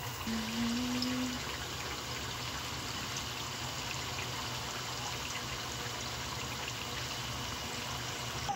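Sliced sweet potatoes deep-frying in hot oil in an aluminium wok, the oil bubbling and sizzling steadily. A brief low hum sounds about half a second in.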